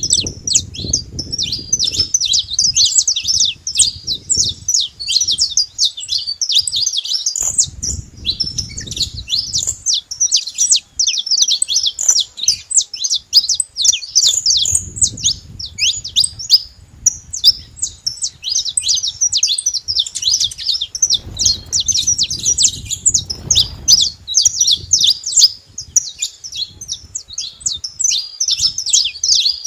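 Saffron finch song: fast, high chirping notes tumbling on without a break. A low rumble comes and goes underneath several times.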